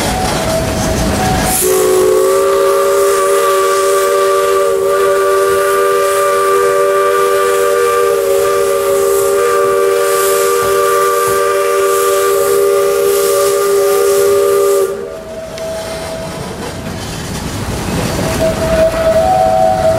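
Narrow-gauge steam locomotive's chime whistle blowing one long, steady blast of several notes at once, starting about a second and a half in and cutting off suddenly some thirteen seconds later, over the running noise of the moving train.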